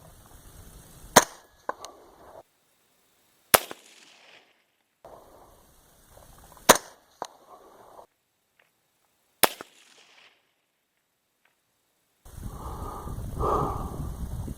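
Rifle bullets cracking past downrange, heard four times a few seconds apart, some cracks followed about half a second later by the fainter, delayed report of the distant shot. Near the end, wind rumbles on the microphone.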